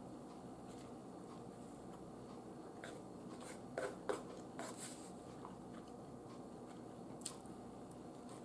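Eating sounds: a metal fork clinking and scraping on a ceramic dinner plate, two sharp clicks about four seconds in with a few lighter ones after, and another single click near the end, between quiet chewing of a soft yeast roll, over a faint steady room hum.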